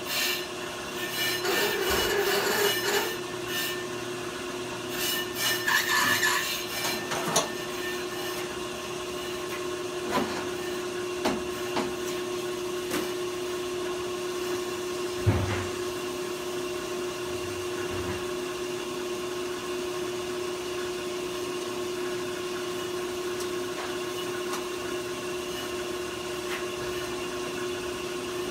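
Brake lathe running with a steady hum while resurfacing a front brake rotor. Rough scraping noise from the cut fills the first several seconds, followed by a few separate knocks.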